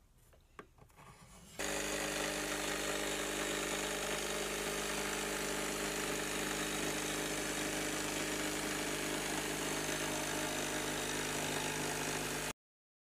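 Faint pencil-marking sounds, then an electric jigsaw with a fine-toothed blade cutting a wood panel, running steadily for about eleven seconds before cutting off suddenly.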